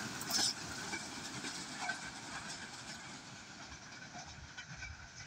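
Rear of a passenger train running away along the track, its wheel-on-rail running noise fading steadily, with a brief louder clatter just under half a second in.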